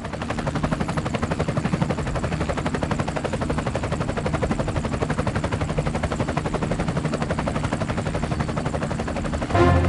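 Robinson R44 helicopter heard from inside the cabin: the main rotor beating fast and evenly over the engine, steady throughout.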